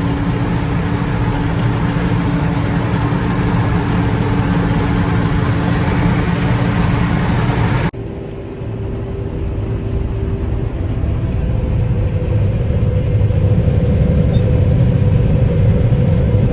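A vehicle engine runs with a steady hum. About eight seconds in it breaks off abruptly into another engine sound, which starts quieter and slowly grows louder as its hum creeps up in pitch.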